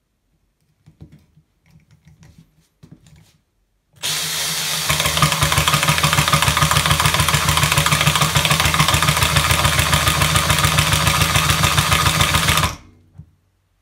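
Cordless drill spinning a homemade impact-driver attachment against a screw in wood, starting about four seconds in with a fast, even rattling hammer and cutting off abruptly near the end. The attachment isn't doing its job: 'this is no good'.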